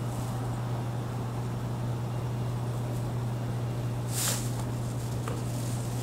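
Steady low hum under quiet handling noise from screw removal on a laptop's bottom case: two brief hissy rustles, one about four seconds in and one at the end, and a small click in between.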